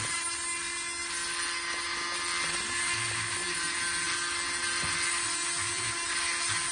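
Small high-speed rotary drill running steadily, its bit grinding into a pink agate held in water. A steady whine sits over a hiss of grinding.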